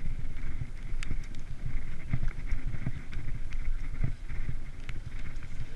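Steady low rumble of wind buffeting the microphone while riding a delivery bicycle, with road noise and scattered short clicks and knocks from the bike.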